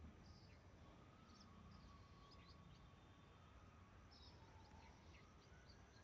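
Near silence outdoors, with faint, scattered short bird chirps over a low background hum.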